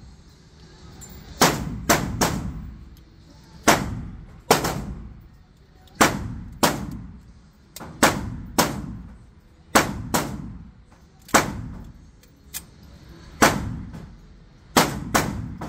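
Gunshots echoing in an indoor shooting range: about fifteen sharp reports at irregular intervals, some in quick pairs, each with a ringing tail from the enclosed range.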